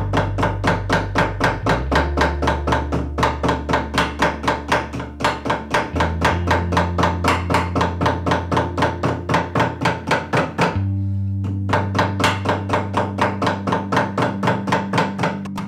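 Backing hammer tapping rapidly on the spine of a sewn book block clamped in a wooden backing press, about five light blows a second with a few brief pauses: the spine is being backed to form its shoulders. Soft background music with sustained low notes runs underneath.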